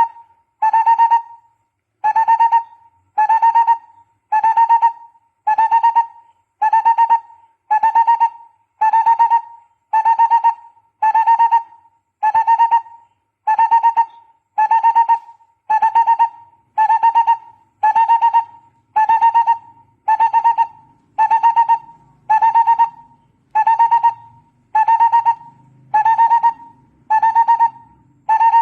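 Barbet call, a hollow note near 1 kHz repeated evenly about once every 0.85 seconds without a break. It is a call recording played to lure barbets.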